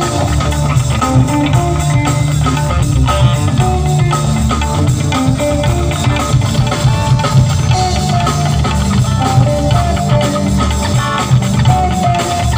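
Live fusion music: a sitar plays a lead melody of plucked notes with slides, over a drum kit and a heavy bass line.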